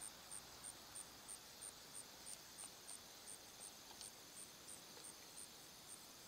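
Faint insect chirping: a high-pitched chirp repeating evenly about three times a second over a steady background hiss.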